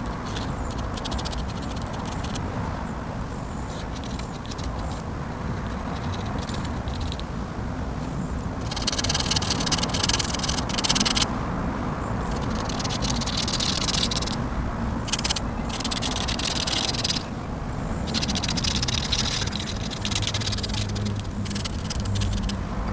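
Ink pen nib scratching on paper in runs of quick hatching strokes, louder in stretches from about nine seconds in, over a steady low hum.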